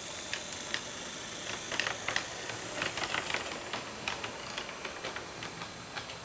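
HO scale model train running out of sight, its wheels clicking over the rail joints: a run of light, irregular clicks, busiest about two to three and a half seconds in.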